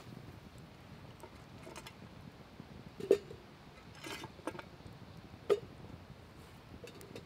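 Stainless steel camp pots and a utensil clinking as they are handled: two sharp metallic clanks with a brief ring, about three seconds in and about five and a half seconds in, and lighter knocks and clicks between them.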